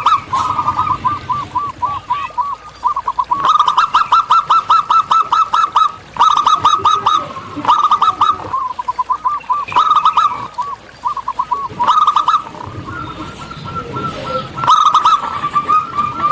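Zebra doves (perkutut) cooing: rapid runs of short, clipped coo notes in bursts of about a second, repeated again and again with brief gaps.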